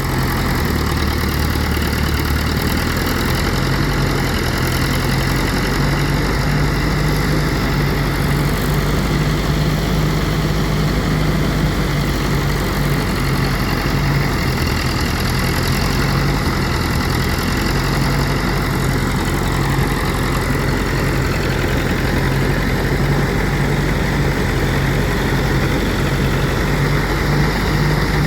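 Engine-driven rice threshing machine running steadily, its motor humming under the rush of the threshing drum.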